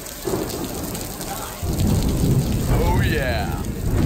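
Heavy rain pouring in a thunderstorm, with a low rumble of thunder that starts suddenly about a second and a half in and is the loudest sound.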